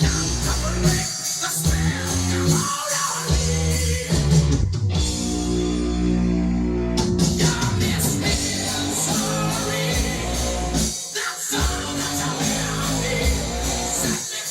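Rock song with singing and guitar played back from a cassette on a Yamaha K-550 cassette deck.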